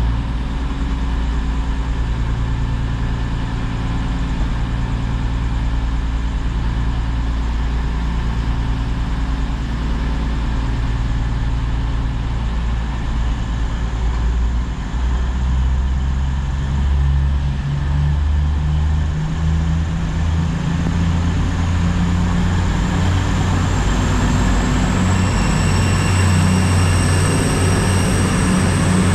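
Class 222 Meridian diesel multiple unit pulling away under power, its underfloor diesel engines running hard. The engine note steps up about halfway through, and a high whine rises in pitch near the end as the train gathers speed and draws level.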